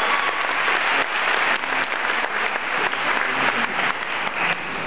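Theatre audience applauding, a dense steady clapping that slowly dies down.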